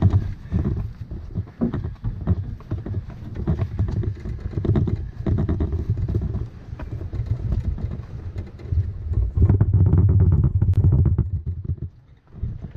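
Rumbling handling noise and uneven thudding footsteps of a canoe being carried on a portage trail, picked up by a camera mounted on the canoe's hull. The noise briefly dies down near the end.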